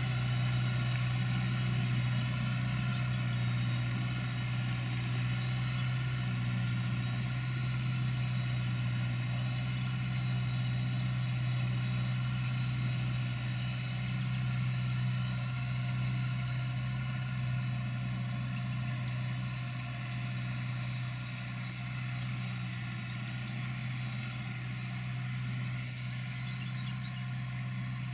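Diesel engines of a John Deere 5090M and a Fiat 1380 DT tractor running steadily under heavy load, each pulling a reversible plough through wet, muddy soil.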